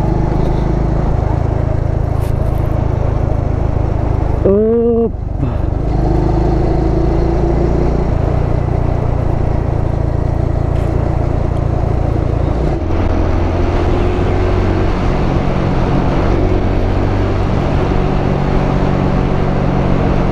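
Motorcycle engine running steadily under way, with road and wind noise. The engine note changes about a second in and again near the middle. About five seconds in there is a short wavering call, like a shout.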